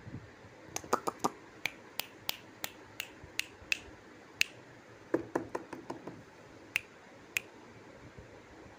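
A series of sharp clicks, about three a second for a few seconds, then a quick cluster of duller clicks and two last single clicks near the end, over faint steady hiss.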